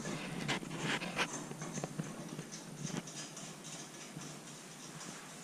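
A few faint, scattered clicks and light rubbing from hands working the old flush-mount ceiling light fixture loose.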